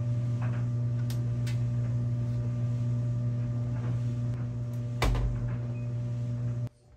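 Washing machine running with a steady electric hum. A couple of light clicks come about a second in, and a louder knock with a thud about five seconds in. The hum cuts off abruptly just before the end.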